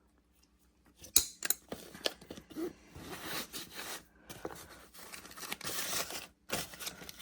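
Hand tools being handled: a sharp clink about a second in, then irregular clinks, scraping and rustling.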